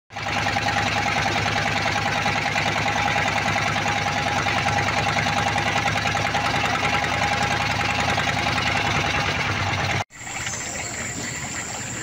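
Boat engine running steadily with a fast, even knocking beat, cutting off abruptly about ten seconds in.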